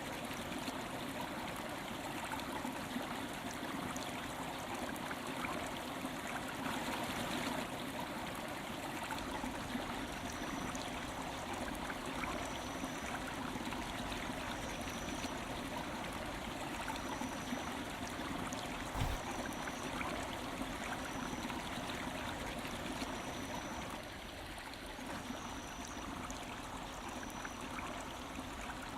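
A stream flowing steadily, a constant trickling water noise. From about ten seconds in, a short, high chirp repeats about once a second, and there is a single faint knock partway through.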